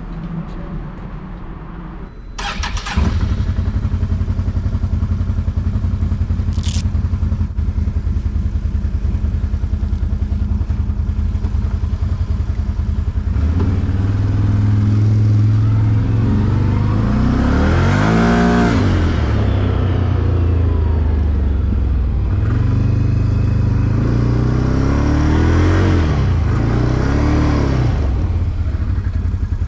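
Quad (ATV) engine running, much louder from about three seconds in. It revs up and down twice in the second half, at around 18 and 26 seconds.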